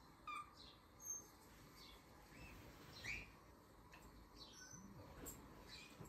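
A cockatiel giving a handful of short, faint chirps, scattered about a second apart.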